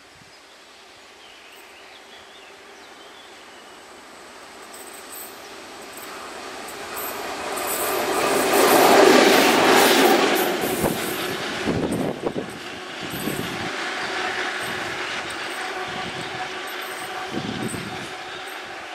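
DB class 232 'Ludmilla' diesel locomotive running light, its Kolomna 5D49 V16 diesel growing steadily louder as it approaches. It passes close by about nine seconds in, its wheels knocking a few times, then fades slowly as it draws away.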